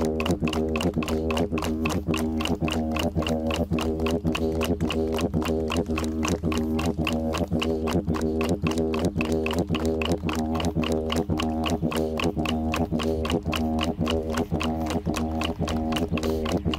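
Didgeridoo played with a continuous low drone, pulsed in a quick, even rhythm with the overtones shifting on each beat.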